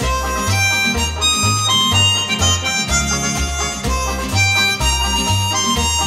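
Background music: a harmonica-led tune over a bass line that steps to a new note about twice a second.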